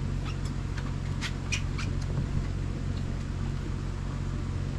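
Boat engine running with a steady low hum, with a few short, high squeaks or ticks in the first two seconds.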